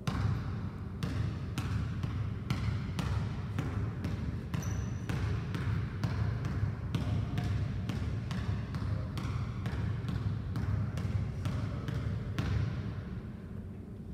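Basketball dribbled on a hardwood gym floor: a steady run of bounces, about two or three a second, that stops near the end.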